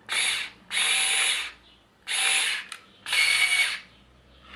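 Parkside PAS 4 A1 cordless screwdriver running its cutter attachment in four short bursts, each lasting half a second to a second, with quiet gaps between them.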